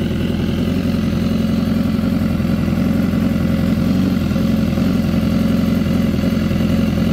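BMW S1000RR's inline-four engine idling steadily through an aftermarket Austin Racing exhaust.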